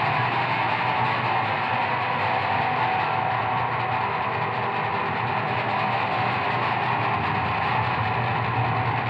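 Instrumental soundtrack music, a dense, steady texture with no clear beat.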